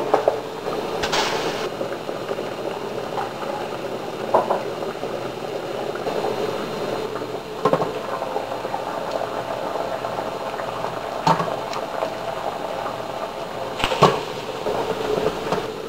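Water boiling steadily in a stainless stockpot under a steamer basket of stinging nettles. A few short metal clinks come from the pot lid and tongs, the loudest near the end.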